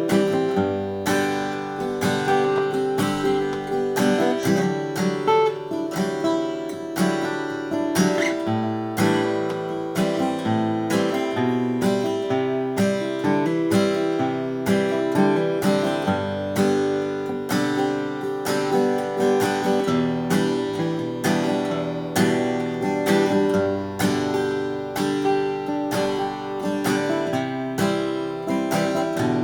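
1919 Martin 0-18 small-bodied acoustic guitar being played, its chords struck in a steady rhythm.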